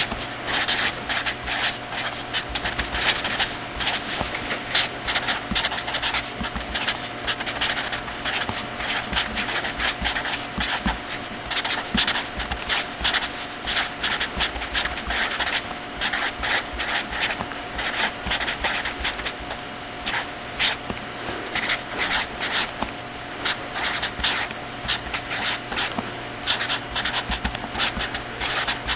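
Dense, continuous scratching and tapping of handwriting, over a steady electrical hum.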